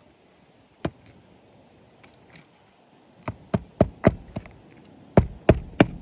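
Hammer striking roofing nails into asphalt shingles: a single blow about a second in, then a run of quick, sharp blows, about three a second, from about three seconds in.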